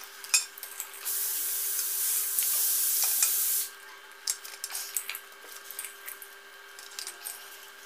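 Boiled eggs clicking and knocking against a steel slotted spoon and steel pans as they are scooped out of water. A steady hiss starts about a second in and cuts off sharply about halfway through.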